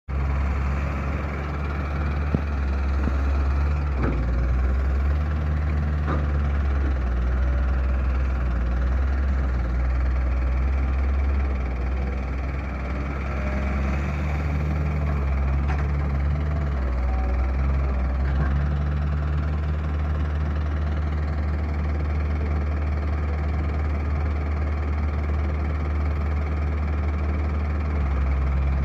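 Heavy diesel engine running steadily at low revs, its note shifting slightly now and then, with a few sharp knocks.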